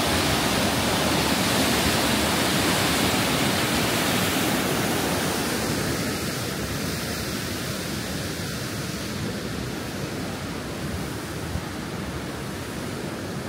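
Rushing of a fast mountain creek tumbling over boulders, a steady even roar that grows gradually quieter over the second half.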